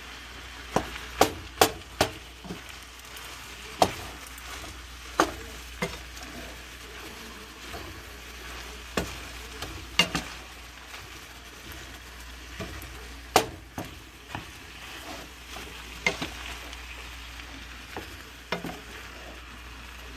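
Fried rice with chicken and vegetables sizzling in a skillet as it is stirred and turned with a wooden spatula, with a steady frying hiss and sharp, irregular knocks of the spatula against the pan.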